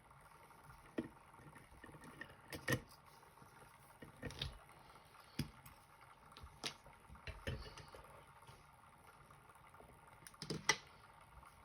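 Light, separate metallic clicks and taps of small tools working on a pin tumbler lock, spread irregularly and loudest near the end.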